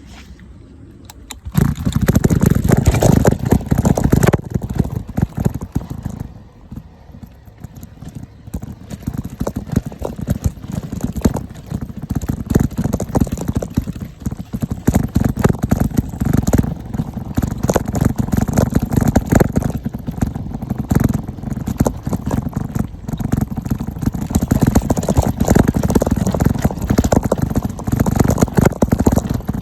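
Mountain bike riding over a rough dirt trail: a steady clatter of rattles and knocks from the bike jolting over bumps. It starts suddenly about a second and a half in and eases off briefly in the middle.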